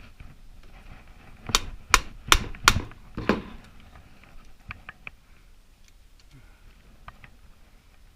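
Five sharp hammer blows in quick succession, starting about a second and a half in, on a hand impact driver to break loose oil-pump screws that he thinks are held with red Loctite. A few faint clicks of tools follow.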